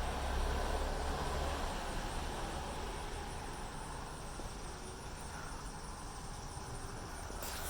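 Steady low hum with faint hiss: background room noise, with no distinct sound events.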